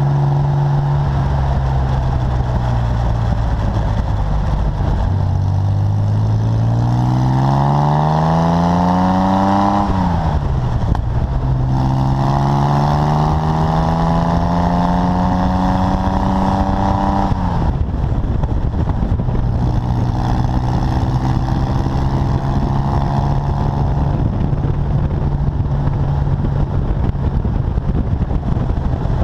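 Exhaust of a 1965 Chevrolet Corvair's air-cooled flat-six, heard close to the tailpipe while driving: the pitch climbs as the car accelerates, drops sharply at gear changes about ten and seventeen seconds in, then holds steady at cruise.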